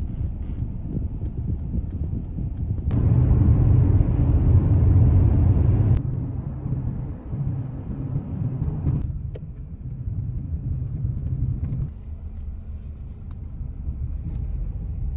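Car on the road: a steady low rumble of engine and tyres. It changes abruptly every few seconds, louder from about three to six seconds in.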